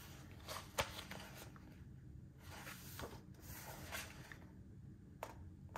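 Pages of a picture book being turned by hand: faint paper rustling and sliding, with a few light taps of paper.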